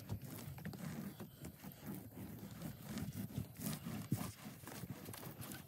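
Paint roller on an extension pole rolling white adhesive onto OSB roof decking: an uneven, pulsing scrubbing sound with scattered small clicks as it is pushed back and forth.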